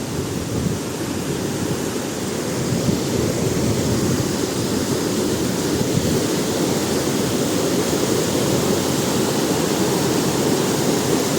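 A river rushing over rocks, a steady, full noise of fast-flowing water.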